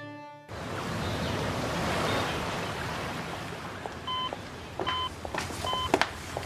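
Hospital patient monitor beeping steadily, a little faster than once a second, starting about four seconds in, over a steady hiss of room noise. A music theme cuts off about half a second in.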